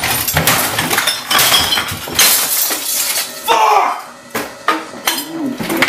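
Repeated crashes and clattering of objects being smashed and knocked around a room, with glass and bottles clinking and breaking. A man's voice shouts briefly about three and a half seconds in.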